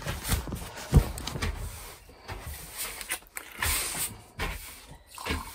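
Phone set down on a table with a knock about a second in, followed by light knocks and handling of a glass wine bottle. Near four seconds a short crackle as the bottle's screw cap is twisted off.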